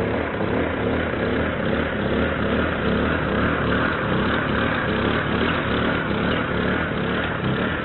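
A car's engine and tyres as a small sedan tows a utility trailer slowly past, a steady vehicle sound.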